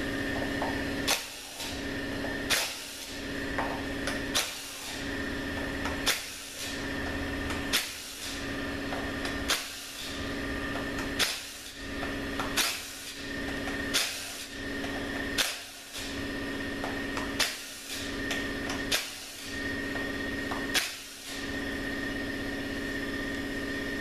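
Sharp clicks about every second and a half over a steady machine hum, from the work of taking the T40 Torx bolts out of a ZF 8HP70 transmission's mechatronic unit.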